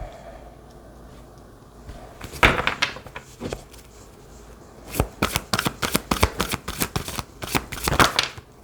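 Tarot cards being shuffled by hand: a short rustle about two and a half seconds in, then a rapid run of card flicks from about five to eight seconds.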